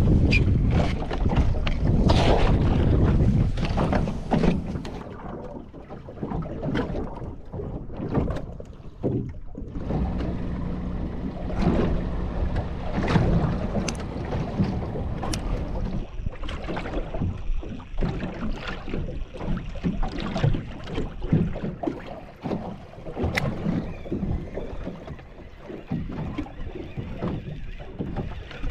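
Small boat drifting at sea: wind buffeting the microphone and water slapping against the hull, with scattered knocks. The wind is strongest in the first few seconds, then eases.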